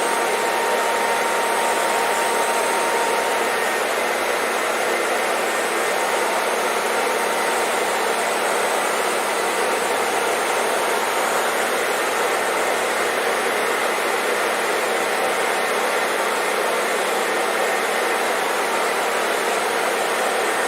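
Hair dryer running steadily: an even, unbroken blowing hiss with a faint steady motor whine in it.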